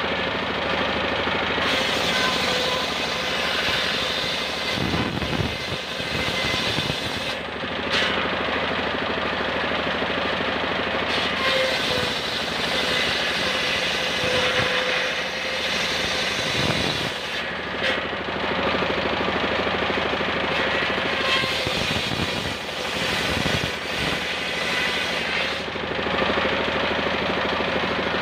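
Homemade circular saw rig ripping a beam of ketepeng wood. The large blade gives a steady cutting noise over the low running beat of the machine that drives it by belt. The high cutting noise eases off briefly twice, around a quarter and two-thirds of the way through.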